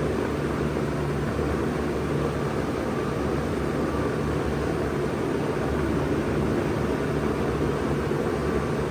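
1992 Bard 2.5-ton wall-hung heat pump running steadily in cooling mode: an even whoosh of air with a low hum underneath.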